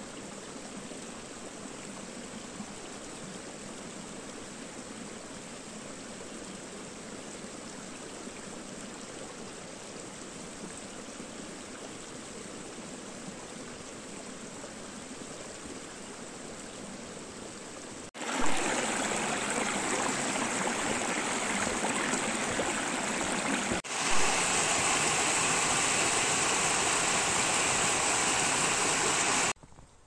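Rushing water of a stream, a steady even noise. It jumps much louder at a sudden change about eighteen seconds in, again after another abrupt change near twenty-four seconds, then cuts off just before the end.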